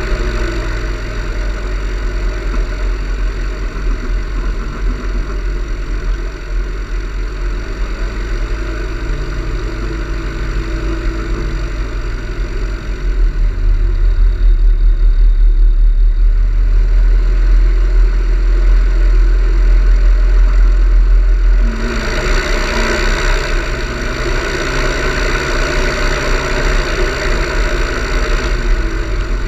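Motorglider's nose-mounted engine and propeller running while the aircraft taxis on grass, picked up by a camera on the wing with a heavy low rumble. It grows louder about halfway through and turns brighter and hissier about three quarters of the way in.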